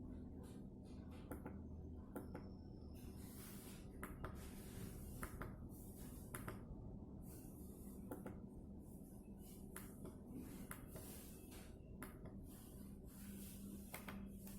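Faint, irregular clicks and light handling noise, one every second or so, over a low steady hum.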